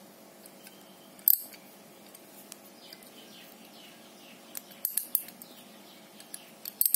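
Ratcheting combination wrench from an Aiwa 40-piece socket set, turned by hand so its pawl clicks in the metal head. There is one sharp click about a second in, then short runs of clicks around four and a half seconds and again near the end.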